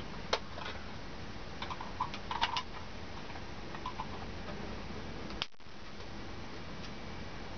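Scattered light plastic clicks and handling sounds from a hand-held rechargeable LED floodlight being turned over and worked by hand, with a small cluster of clicks about two seconds in and a sharper click about five and a half seconds in, over a steady background hiss.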